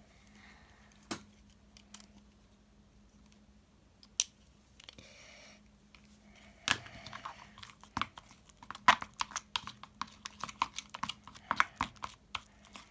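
A spoon stirring slime mixture in a bowl, clicking against the sides: a few scattered knocks at first, then quick, irregular clicking for the last third.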